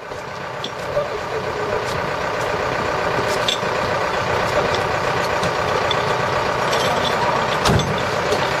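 An engine running steadily at constant speed, fading in over the first second or two. A few light clicks and a dull thump near the end.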